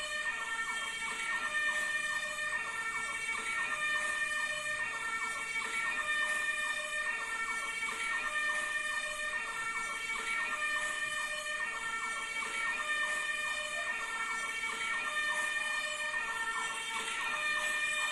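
Fire engine siren sounding an electronic two-tone hi-lo pattern, with a fast repeating warble layered over it and a steady high tone throughout.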